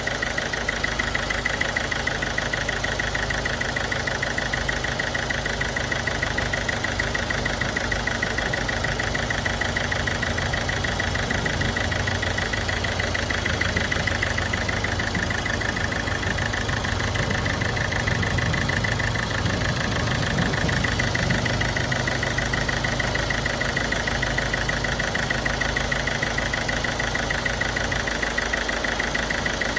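Ford Figo turbo-diesel engine idling steadily with an even, rapid clatter, carrying a light injector miss.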